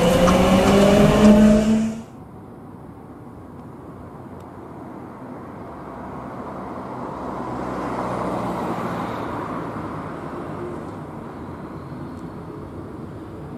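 An electric tram pulling away, its traction motors whining up in pitch, cut off sharply about two seconds in. After that comes a quieter, steady rolling rumble of a Bombardier Flexity Outlook tram approaching on grassed track, mixed with road traffic, swelling around the middle and easing again.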